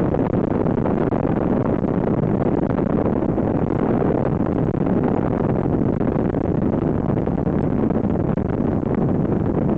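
Inflatable motor boat speeding over choppy river water: a steady, loud rush of wind and water noise.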